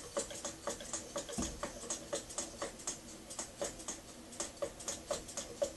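Small model steam plant, a homemade boiler with a Märklin steam engine unit, ticking: quick, fairly even clicks about four or five a second.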